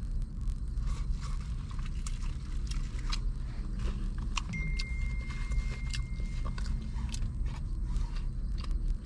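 Someone eating fried crab fries: chewing with small crunches and fork clicks and scrapes, over a steady low rumble. A thin, steady high tone holds for about two seconds midway.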